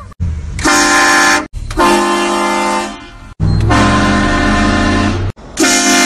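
Truck-mounted train horn blasting: four long blasts in a row, each a steady chord of several notes lasting one to two seconds, with only brief breaks between them.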